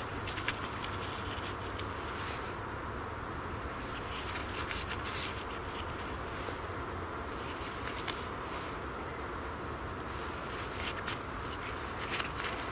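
Silky F180 folding saw cutting through a small log in runs of sawing strokes, with short pauses between the runs.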